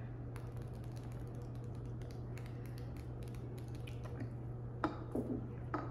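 A man drinking a pint of beer: faint small clicks of swallowing over a steady low hum, then a few short breaths after the drink, about five seconds in.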